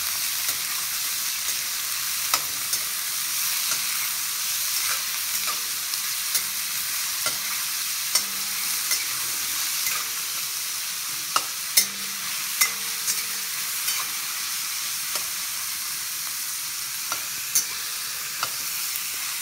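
Chopped red onions sizzling in hot mustard oil in a stainless steel wok, stirred with a metal spatula that scrapes and knocks against the pan now and then. A few sharper knocks come a little past the middle.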